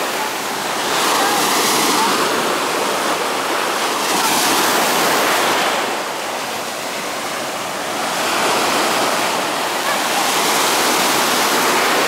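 Sea surf breaking at the shoreline and washing up the sand in a continuous rush, swelling and easing in long surges.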